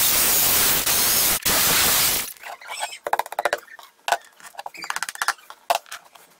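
Electric drill boring a hole into the wall at floor level for a plastic wall plug. It runs loud for about two seconds with a brief break and then stops. Quieter, irregular clicks and knocks follow.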